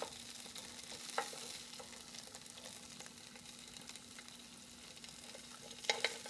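Ahi tuna steaks sizzling gently in a hot grill pan, with a few sharp clicks of plastic tongs against the pan as the steaks are lifted out: one at the start, one about a second in, and several near the end.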